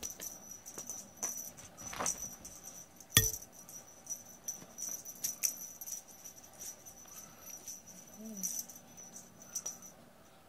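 A cat at play with a toy on a string: a small bell jingling, with light taps and scuffs and one loud thump about three seconds in.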